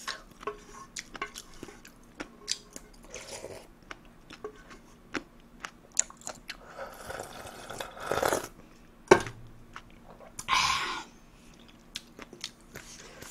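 Close-miked eating sounds: chewing with many small wet clicks, then a long slurp of ramen broth drunk straight from the pot about seven seconds in, a sharp knock near nine seconds, and a second, shorter slurp a little later.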